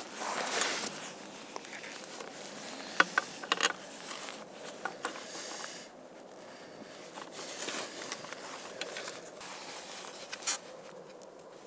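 Handling noise: rustling of a waterproof jacket, with a few sharp clicks and taps from hands fitting a temperature sensor to the bracket behind a small solar panel.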